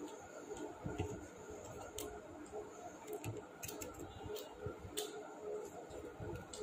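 A person eating and chewing, with soft, irregularly spaced mouth clicks and smacks.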